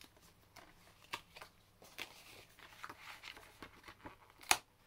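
Plastic wrapping on a steelbook case crinkling and rustling as it is peeled and handled, with scattered light clicks and one sharp click about four and a half seconds in.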